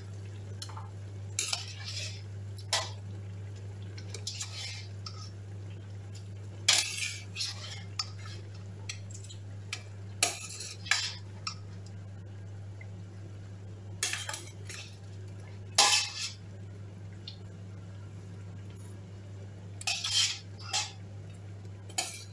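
Metal spoon clinking and scraping against a stainless steel stockpot as boiled meat is lifted out, in irregular knocks every second or few, over a steady low hum.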